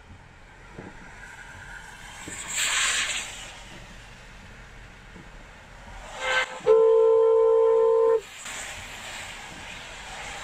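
A car horn blares once, a steady two-pitch tone held for about a second and a half, a little past the middle. Under it runs the hiss of tyres on a wet road, with a short louder swish of hiss a few seconds earlier.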